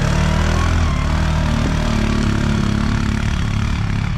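ATV (quad bike) engine running at low, fairly steady revs.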